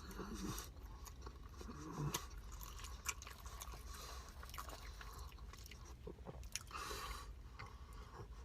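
A person chewing and biting food close to the microphone: faint, scattered wet clicks and small crunches.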